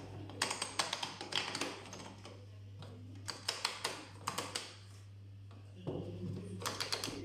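Programme selector dial of an Indesit WIUN82 washing machine being turned by hand, clicking through its detents in several quick runs of clicks. A steady low hum sits underneath.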